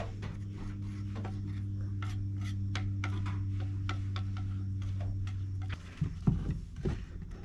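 Wood glue being spread along a wooden board with a hand tool: scraping and rubbing with many small irregular clicks, over a steady low hum that cuts off just before six seconds in. Then a few wooden knocks as the board is lifted and handled, the loudest a little after six seconds.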